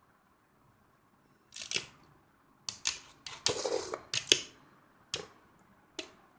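Two spinning metal Beyblade tops clashing, a run of sharp metallic clacks at irregular intervals starting about a second and a half in, the loudest one about two-thirds of the way through with a short ring.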